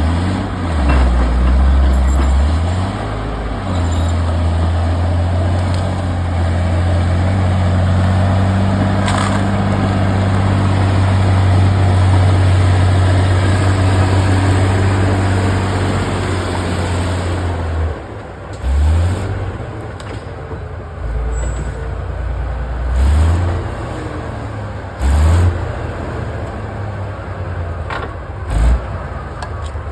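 A heavy diesel engine running, its pitch shifting up and down several times, with short revs in the second half. A few sharp knocks sound along the way.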